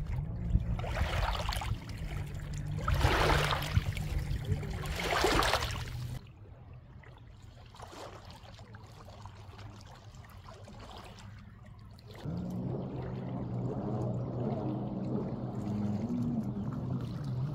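Small waves lapping and splashing against shoreline rocks in three surges over a steady low engine hum from a jet ski out on the lake. The splashing stops about six seconds in, and the hum carries on, quieter at first and fuller again from about twelve seconds.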